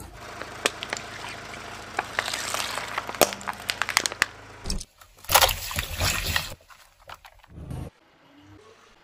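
Plastic soda bottle packed with water beads crackling and cracking under a rolling car tyre, a dense run of sharp clicks and pops. About five seconds in, louder bursts of crunching come in, then the sound drops away to faint near the end.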